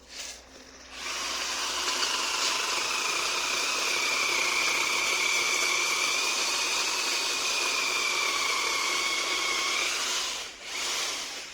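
Chainsaw running steadily for about nine seconds while cutting through guava wood, with a high whine that sags slightly under load, then stops. A short burst of the saw comes just before the long cut, and a brief one comes right after it.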